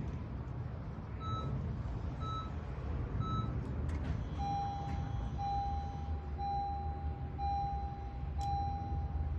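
Electronic beeps during programming of a new key to a 2017 Honda CR-V: three short, higher beeps about a second apart, then from about halfway a run of longer, lower beeps in steady succession, over a steady low rumble.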